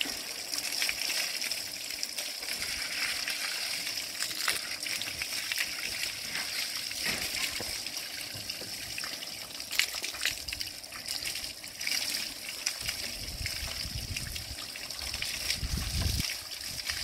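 Water from a pump-fed hose spraying steadily into a sheep's fleece and splashing and dribbling off onto a wooden table and the ground, as the ram is given a rinse before shampooing.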